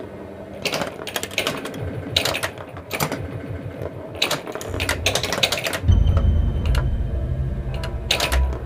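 1980 Williams Alien Poker pinball machine in play: bursts of sharp mechanical clicks and clacks from the ball, flippers and bumpers, in clusters every second or so. A low steady hum joins in about six seconds in.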